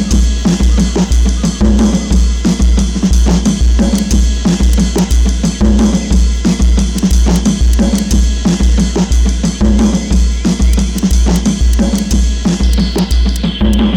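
Instrumental music: a drum kit with kick, snare and rimshots plays over a steady pulsing bass line. Near the end the high end drops away.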